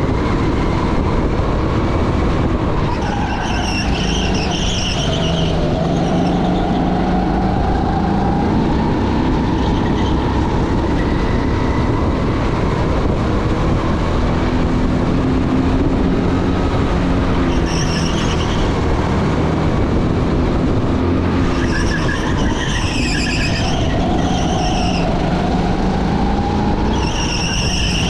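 Vehicle motors running continuously, their pitch slowly rising and falling, with short high-pitched squeals several times, near the start, in the middle and near the end.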